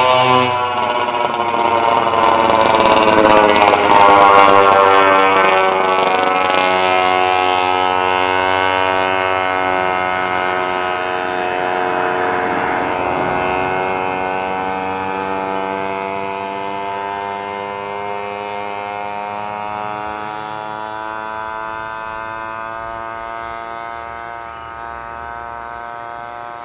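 Boeing 767-300ER's twin jet engines whining at taxi power as the freighter rolls past. The whine is made of many steady tones, loudest a few seconds in, then slowly fading as the aircraft moves away.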